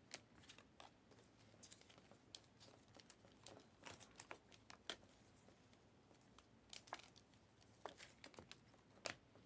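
Faint, scattered crinkles and light clicks of trading cards and their pack wrappers being handled.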